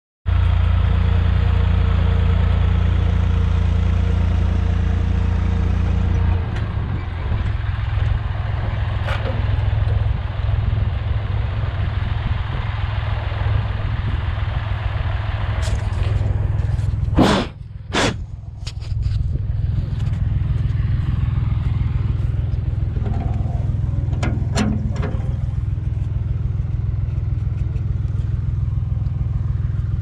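Massey Ferguson 245 tractor engine running steadily while towing a square baler, its low drone changing about six seconds in. Two sharp knocks just past halfway as the camera is moved.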